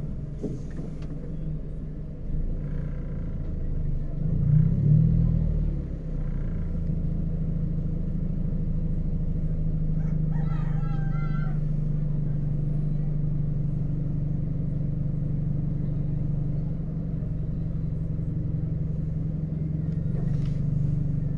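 Car idling with a steady low hum, heard from inside the cabin. A louder rumble swells and fades about four to five seconds in.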